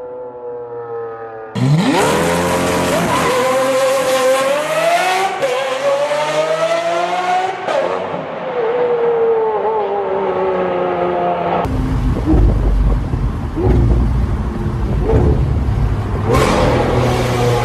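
Lamborghini Aventador V12 engines at full throttle. Revs rise, drop back at two gear changes, then fall away. The last part is heard from inside the cabin, a heavy, low rumble as the car pulls through the paddle-shifted gears.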